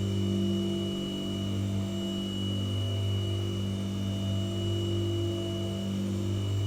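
White noise sound machine running steadily: a low, even hum with a thin high whine above it.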